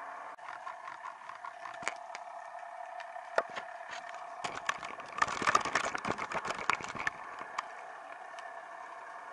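Underwater audio from a camera riding on a tai rubber (rubber jig) rig: a steady hum with scattered sharp clicks, then a dense run of clattering knocks from about four and a half to seven seconds in, as a fish strikes the jig and shakes the rig.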